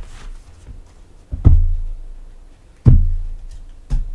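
Background music with deep drum hits about every second and a half, each followed by a held low bass tone.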